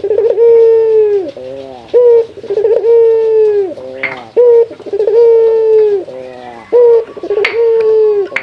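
Male ringneck dove (burung puter) cooing loudly in repeated phrases, each a long held coo that drops at its end followed by a run of short rolling notes: a male's call challenging a rival. A couple of sharp clicks sound between phrases.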